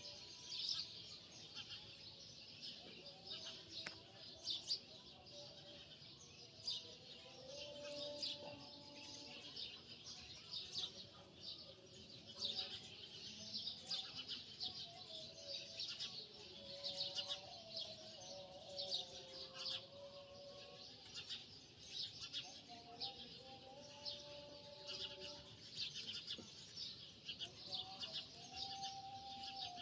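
Many small birds chirping continuously in quick, overlapping calls, with faint held, wandering tones lower down.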